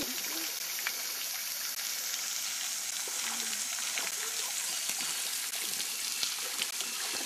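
Sprinklers spraying water across a pond: a steady hiss of spray falling onto the water surface.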